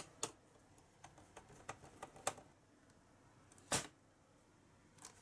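Scattered light plastic clicks and taps as a laptop keyboard is worked loose from its case, with one louder click a little before four seconds in.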